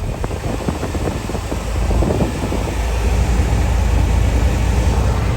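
Heavy vehicle engine running with a deep steady rumble, with a run of rattles and knocks over the first two seconds or so.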